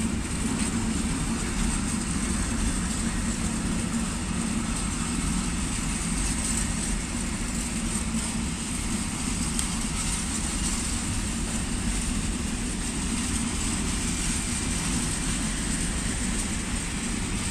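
Container freight train's wagons rolling past on the adjacent track: a steady rumble of wheels on rail, with a thin, high ring over it.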